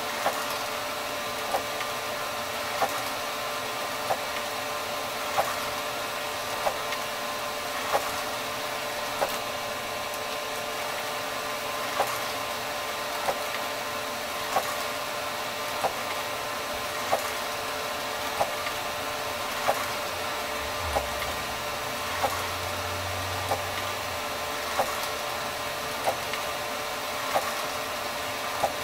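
Encad NovaJet 750 wide-format inkjet printer running a print job: a steady mechanical hum with a sharp click repeating about every 1.3 seconds.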